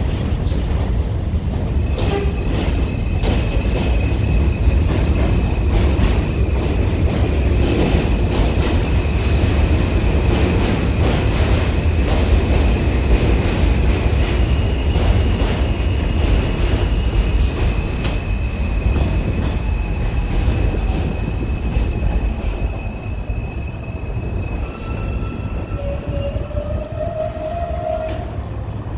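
R160 subway trains running through an elevated station: a heavy steady rumble with sharp clicks of the wheels over rail joints, and a long high steady squeal from the wheels that stops a few seconds before the end. Near the end a short rising whine, as a train's motors pull away.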